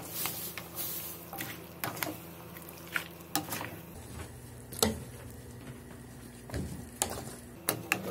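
Black spatula stirring diced raw potatoes, grated carrot and onion in a stainless steel pot, with soft scraping and scattered knocks of the spatula against the pot.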